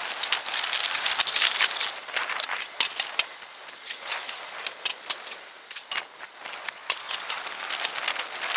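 Fast-forwarded roadside sound: swells of rushing traffic-like noise with many quick, irregular clicks and rattles on top. The loudest swell comes in the first two seconds.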